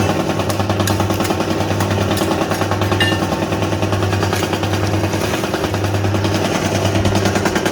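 Two-stroke chainsaw running steadily at high revs under load, sawing into a tree trunk in a bore cut.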